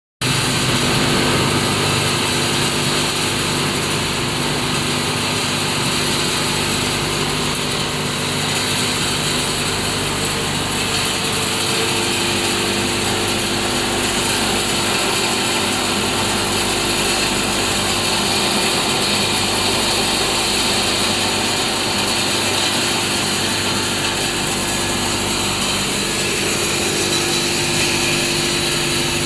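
Rigid PVC milling machine (pulverizer) with an alloy steel bladed rotor running steadily, a dense high hiss over a steady mechanical hum.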